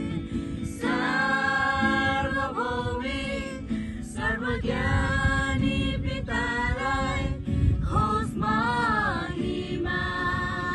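A mixed group of young men and women singing a song together, accompanied by an acoustic guitar.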